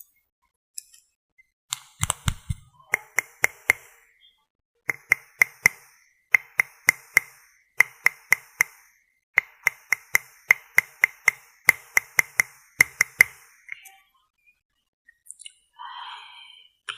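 Crisp taps on a hard plastic makeup case, in quick runs of three or four with short pauses between, each tap ringing briefly.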